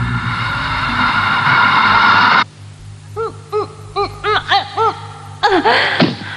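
A shimmering, sustained music cue cuts off suddenly after about two seconds. A cartoon boy's voice follows with a string of short, effortful grunts as he heaves at a lever, ending in a longer falling groan.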